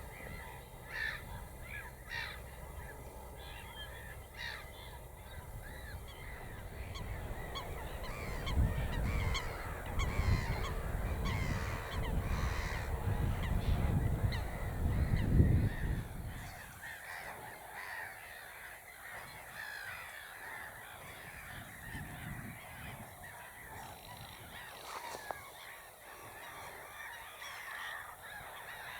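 Many birds calling at once, a dense mix of short calls and chirps. A low rumble is loudest from about 8 to 16 seconds in.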